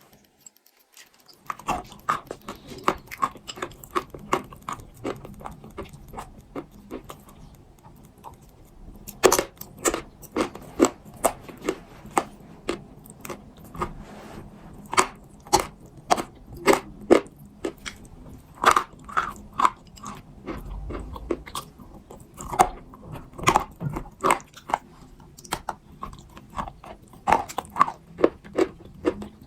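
Pieces of soft clay being bitten and chewed close to the microphone: an irregular run of sharp crunches, about one or two a second, beginning about a second and a half in.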